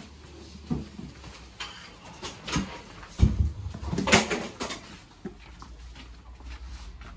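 Scattered knocks and clatters of flat furniture panels being picked up and handled, with a few louder bumps about three and four seconds in, over a low steady hum.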